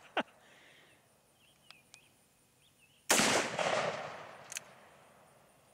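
A single shot from a Freedom Arms Model 83 .475 Linebaugh revolver about three seconds in, its report dying away over about two seconds.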